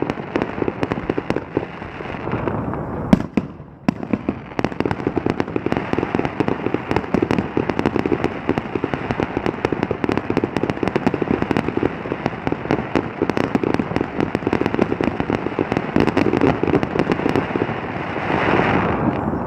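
Fireworks going off in a dense, continuous string of rapid pops and bangs, with a brief lull about three and a half seconds in.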